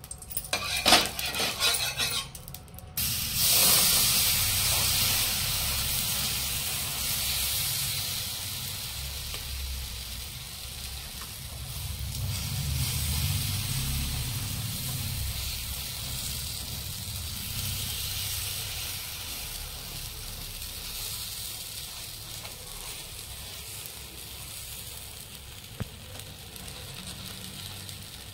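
Uttapam batter sizzling on a hot oiled tawa as it is ladled on and spread out. The sizzle starts suddenly about three seconds in after a few clicks and knocks, then slowly eases off.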